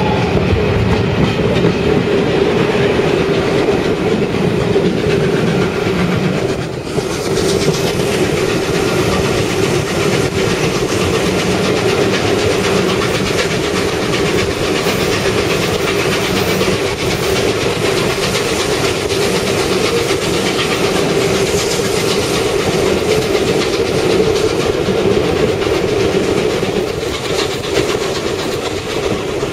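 Train running close by, a steady loud rumble with wheels clicking over the rail joints and a brief dip about seven seconds in.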